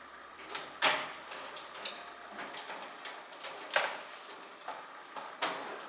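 Computer power supply unit being handled and fitted into a metal PC case: a run of light clicks and clunks, with three sharper knocks near the start, in the middle and near the end.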